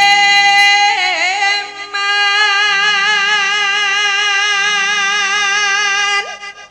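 A sinden's high female voice, amplified through a microphone, singing Javanese tembang-style. She holds a long note, slides down with an ornamented wobble about a second in, then sustains another long note with even vibrato until she stops shortly before the end.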